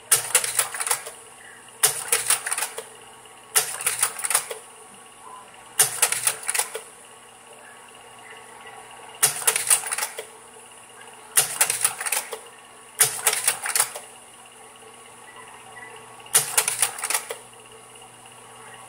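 Kodak Carousel 650H slide projector changing slides: eight bursts of rapid mechanical clicks, each about a second long, at uneven intervals as the tray advances and drops each slide into place. Under them runs the projector's steady fan hum.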